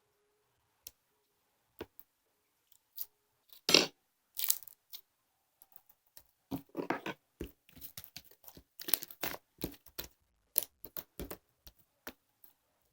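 Irregular handling noises: short rustles, crinkles and clicks coming in quick uneven bursts, the loudest about four seconds in.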